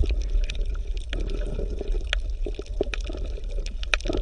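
Water sloshing and bubbling around a hand in shallow water, with scattered small clicks over a steady low rumble.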